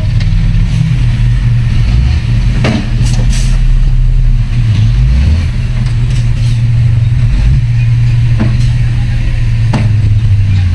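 Heavy diesel engine of earthmoving machinery running under load, its low drone shifting in pitch as it works, with a few sharp metallic clanks.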